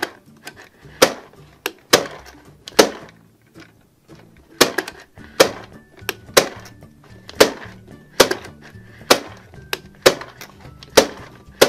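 Plastic toy popcorn maker being hand-cranked: sharp plastic clacks about once a second as the handle turns and the dough popcorn pops, with a pause a few seconds in. Background music plays underneath.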